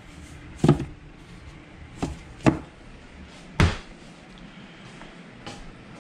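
Containers being set down on a pantry shelf: four hard knocks and clunks, the heaviest about three and a half seconds in, and a faint one near the end.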